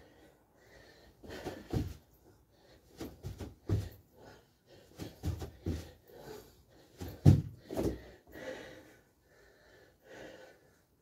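Hard, heavy breathing with irregular thuds of feet landing and hands dropping to a floor mat during burpee-style exercise: jumping jacks, kick-outs and squats. The loudest thud comes a little after the middle.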